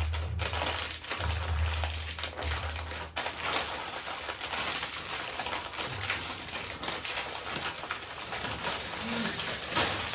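Continuous rustling and crackling with many small clicks and taps as dry jhal muri ingredients, puffed rice and snacks, are handled and tipped out for mixing.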